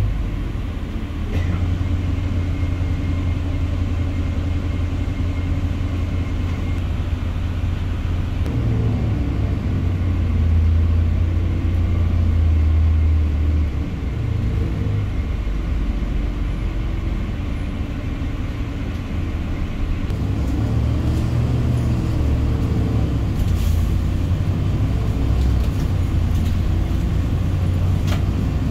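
City bus heard from inside the cabin while driving: a steady low engine and road rumble that swells and eases a few times with speed.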